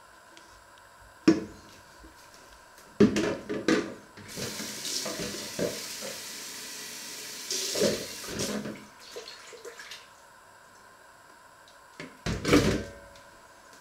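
Kitchen tap running for about three seconds, between bouts of knocks and clatter of handling in the kitchen. There is a sharp click early and a louder thump near the end.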